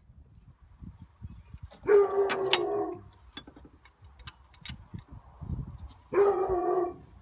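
A dog calling twice, each call drawn out to about a second and steady in pitch, with faint clicks and knocks in between.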